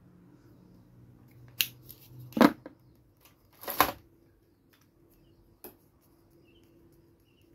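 Hard plastic toy parts being handled over a clear plastic packaging tray: a sharp click about one and a half seconds in, then two louder scraping knocks about a second apart, and a faint click near the end.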